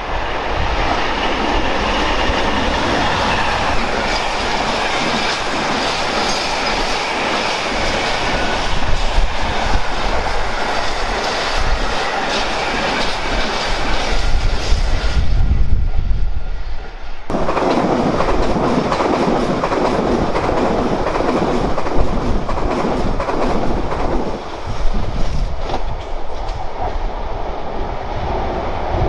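Class 66 diesel locomotive, with its two-stroke V12 engine running, hauling an intermodal container train past, followed by the container wagons rumbling and clattering over the rails and junction pointwork. The noise dips briefly about fifteen seconds in, then the wagons' rumble and clatter comes back.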